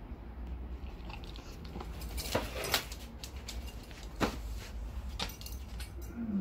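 Jindo dog biting and mouthing a large plush fish toy: scattered clicks and rustles, the loudest a little over two seconds in and again around four seconds, over a low steady rumble.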